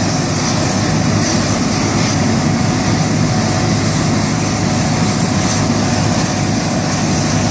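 Tractor engine running steadily while working a heat-impact (thermal) weeder, with a constant rushing hiss over the engine hum and no change in pace.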